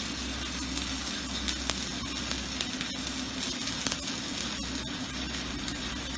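Shielded metal arc welding with an E6013 electrode at 80 to 90 amps, laying a straight bead: the arc's steady crackling hiss with sharp pops, over a low steady hum.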